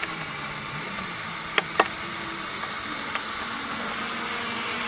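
Hubsan H502S Desire quadcopter's propellers whining steadily in flight as it drifts while being trimmed, a high hum that grows a little louder toward the end. Two short clicks about a second and a half in.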